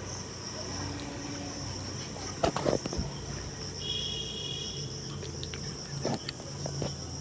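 A chorus of crickets chirping steadily, with a few soft knocks and handling noises in the middle and near the end.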